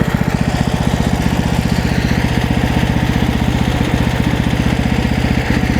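Small gasoline engine of a MechMaxx SM32 portable bandsaw sawmill running steadily, with an even, rapid firing pulse.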